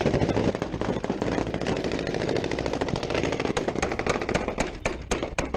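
Rapid automatic gunfire, shots following each other many times a second, with a few louder single shots near the end.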